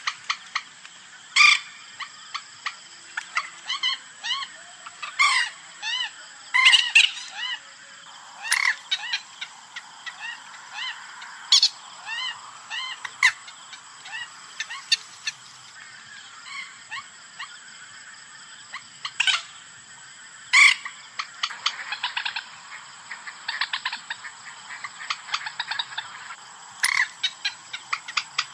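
Common moorhen calling, played as a hunting lure call: loud, sharp calls at irregular intervals and runs of short clipped notes, with a stretch of rapid ticking chatter in the second half. A faint steady high-pitched tone runs underneath.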